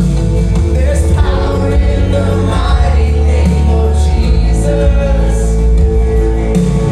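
Congregational worship song: a group of voices singing over a full band with heavy bass and sustained chords.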